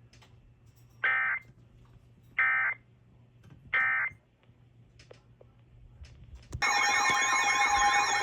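Emergency Alert System end-of-message data bursts: three short digital bursts about a second and a half apart. About six and a half seconds in, a loud steady alert tone starts, the attention signal for the next alert.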